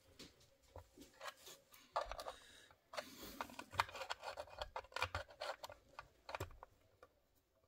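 Faint scraping, rubbing and small irregular clicks as fingers push and fit the printed interior panels inside a miniature supermarket diorama.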